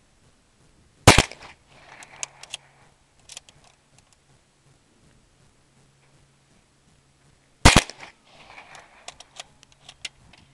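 Two shots from a .22 rifle, about six and a half seconds apart, each a sharp crack followed by a short echo and a few light clicks.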